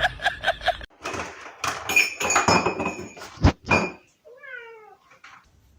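A cat gives one short meow that falls in pitch, after a spell of knocking and clattering with one sharp knock.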